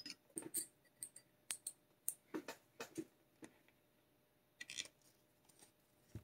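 Light metallic clicks and taps of a hex driver and small screws being handled and set into the metal chassis parts of an RC truck: a quick irregular run of clicks through the first three and a half seconds, a short cluster near five seconds, and one more click at the end.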